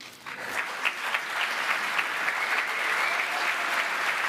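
Audience applauding: the clapping starts at once and builds over about a second to a steady, dense applause.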